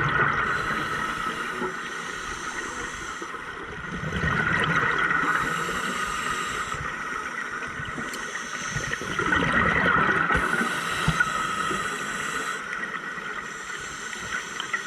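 Scuba diver's breathing heard underwater: exhaled bubbles from the regulator gurgle up in three surges about five seconds apart, with a hiss of air between them.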